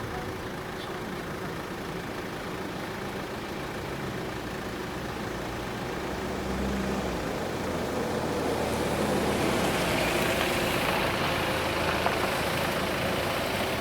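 A motor vehicle's engine running, getting louder from about halfway through with a rising rushing noise as it draws near and passes.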